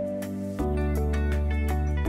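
Instrumental background music with plucked notes over a steady beat; a deep bass note comes in about half a second in and the music gets a little louder.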